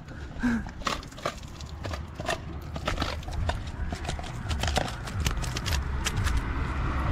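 Light, irregular taps and slaps of a hand working at something on a concrete pavement, over a low rumble.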